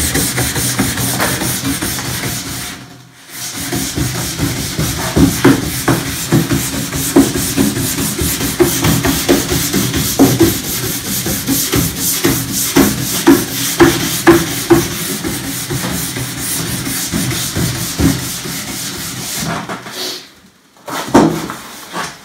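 Nylon brush scrubbed back and forth along a cross-country ski base, brushing off glide wax that has dried white. It is a fast, scratchy stroking with a short pause about three seconds in. The brushing stops shortly before the end, and a couple of knocks follow.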